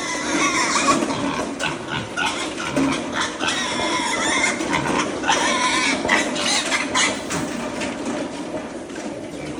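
Piglets grunting and squealing at feeding time, among many short clicks and knocks. The activity is busiest in the middle and eases off near the end.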